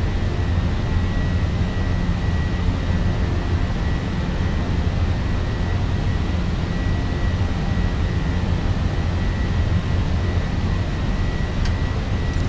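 Airbus A320 twin jet engines running with a steady deep rumble and a thin, steady high whine.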